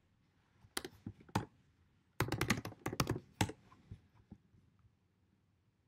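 Typing on a computer keyboard: a few separate keystrokes, then a quick run of keys a little after two seconds in, then scattered lighter taps.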